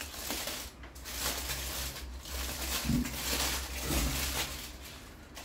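Aluminium foil crinkling and rustling in irregular swells as a wrapped toasted sandwich is pulled open by hand.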